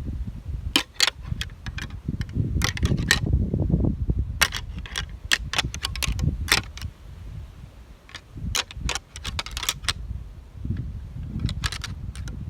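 Hunting gear clinking and rattling as it is carried and handled, with irregular sharp metallic clicks over a rough low rustle and rumble.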